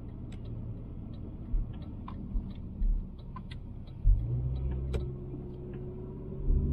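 Citroën Xantia driving, heard from inside the cabin: a low engine and road rumble with a few faint clicks and rattles. About four seconds in, the engine note grows louder and steadier.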